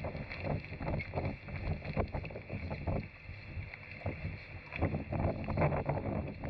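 Gusty wind buffeting the microphone in uneven surges, with rough, splashy noise underneath.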